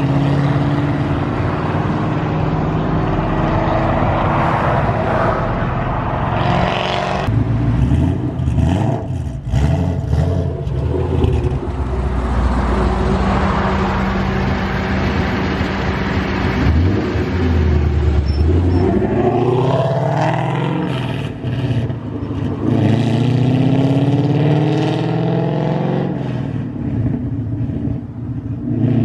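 Ford Mustang GT V8 running through long-tube headers, an off-road X-pipe and Corsa Extreme mufflers, revving and accelerating so that its pitch climbs and falls several times.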